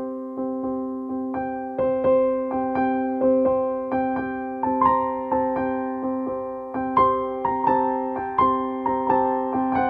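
Background music on a keyboard: gentle piano-like notes struck about twice a second, each fading away, over a sustained chord.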